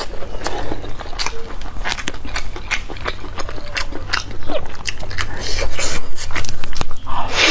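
Close-miked eating of crisp fried food: crunchy bites and chewing, with many sharp crackles that come thicker in the second half.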